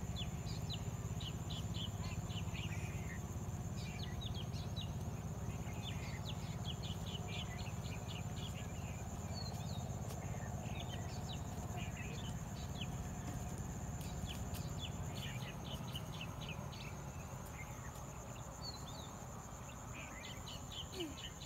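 Outdoor countryside ambience: a steady high-pitched insect buzz with many quick bird chirps coming in bunches, over a low steady rumble.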